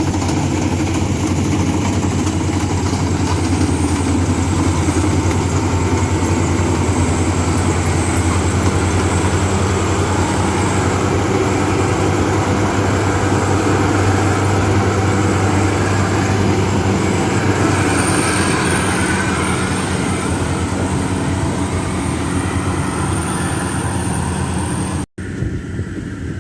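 A large engine running steadily at an even speed, with a strong low hum. It cuts off abruptly about a second before the end, leaving a quieter, windy background.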